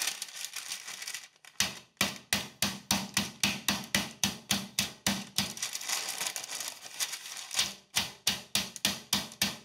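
Metal meat mallet pounding a bone-in pork chop through parchment paper on the counter: rapid repeated thuds, about four a second, starting after a second or so.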